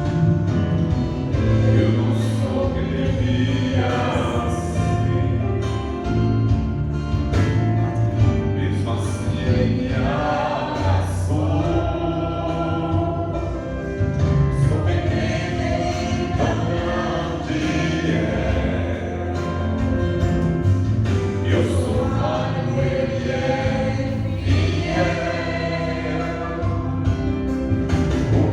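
Gospel worship music: a band playing with singing over a steady bass line.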